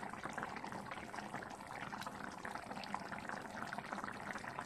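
Fish molee in coconut milk simmering in a pan: a steady bubbling with many small pops.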